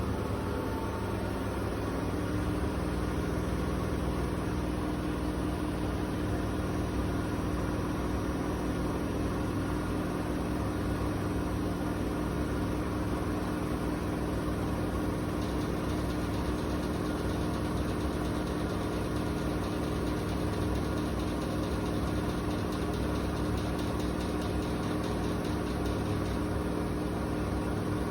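Washing machine in its spin cycle, the drum spinning at high speed with a steady motor hum and whir that settles onto a constant pitch about two seconds in.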